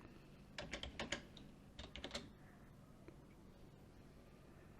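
Faint computer keyboard typing: two short bursts of keystrokes, about half a second in and again about two seconds in, as a calculation is keyed in.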